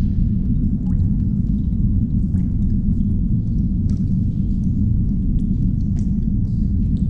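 Underground ambience sound effect: a steady deep rumble, with faint scattered drips and clicks over it.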